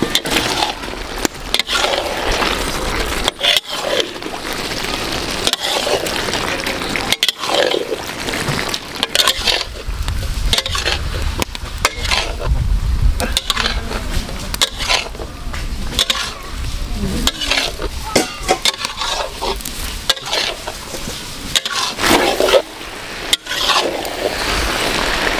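Chicken feet frying in a spiced masala in a large metal pan as they are stirred, with a steady sizzle and the spatula scraping and knocking against the pan. The sound breaks off briefly several times, with a low rumble in the middle.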